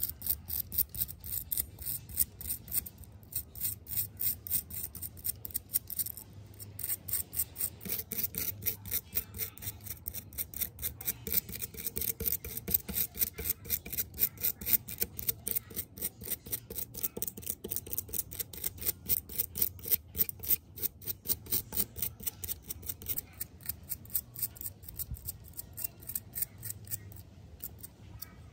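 Stiff brush scrubbing grime and tarnish off an ornate silver tobacco pipe: rapid back-and-forth rasping strokes, about four a second, that stop at the very end.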